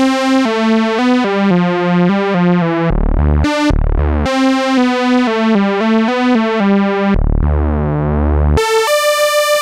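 Cherry Audio LowDown, a software emulation of the Moog Taurus bass pedals, playing a quick bass line of short synth notes, about four a second, shifted up into a higher octave. Twice the line drops to deep low notes, and near the end it holds one long high note.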